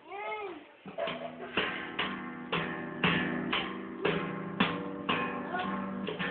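Viola caipira (Brazilian ten-string guitar) strummed in steady chords, about two strokes a second, starting about a second in. A short rising-and-falling tone comes first.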